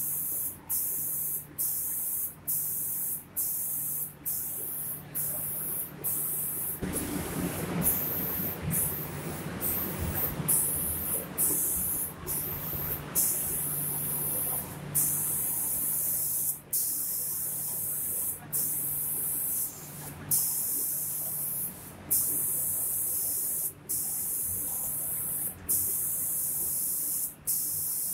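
Automatic spray-painting machine's spray guns hissing in short runs, cut off briefly about twice a second at first and then every second or two, over a low steady hum. A louder rushing noise takes over for several seconds from about seven seconds in.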